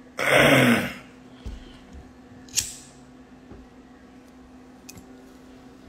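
A man's short, loud vocal outburst with a falling pitch just after the start. Then a quiet stretch with a steady low electrical hum and one brief hiss a couple of seconds later.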